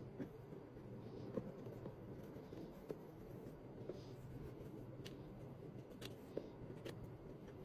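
Quiet handling of a paper gift bag and a cardboard gift box: faint scattered taps and clicks, several a couple of seconds apart, over a steady low hum.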